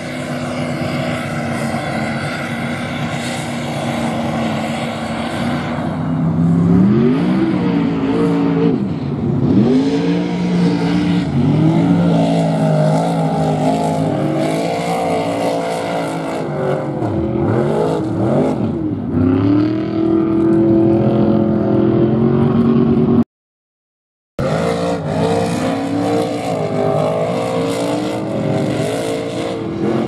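Big mud truck's engine running hard through a deep water and mud pit, steady at first and then revving up and down again and again as it fights through, over the hiss of water and mud spray. The sound cuts out for about a second past the middle.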